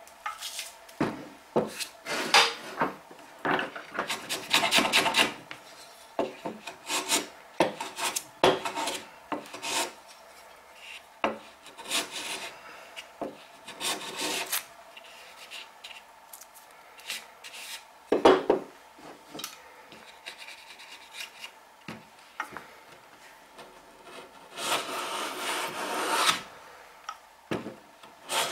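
Hand planes shaving wood in irregular strokes, mostly short with a few longer passes: cleaning the assembled bridle joint flush. One sharper knock comes about two-thirds of the way through.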